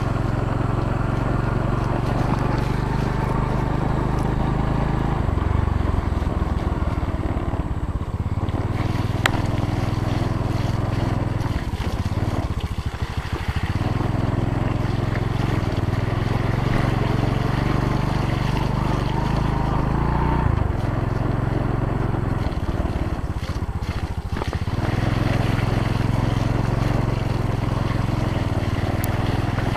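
Small Yamaha motorbike engine running as it is ridden slowly over a muddy, rutted dirt road. Its revs rise and fall several times, easing off briefly about twelve seconds in and again about twenty-three seconds in.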